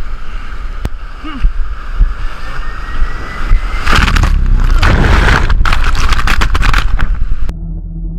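Surf surging and washing over rocks, with wind rumbling on the microphone, heaviest in a long wash from about four seconds in. It cuts off abruptly near the end to a low steady hum.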